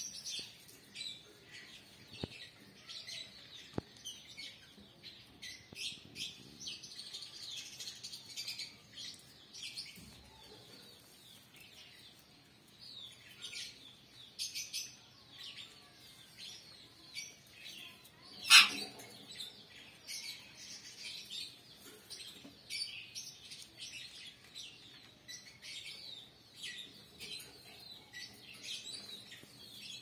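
Indian ringneck parakeets chattering, many short high chirps one after another, with one much louder call about eighteen and a half seconds in.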